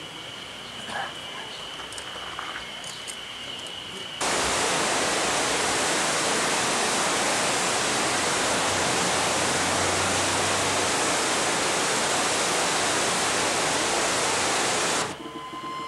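Faint outdoor ambience with a few distant voices, then about four seconds in the sudden, steady rush of a rocky mountain river's rapids, water pouring over boulders, which cuts off near the end.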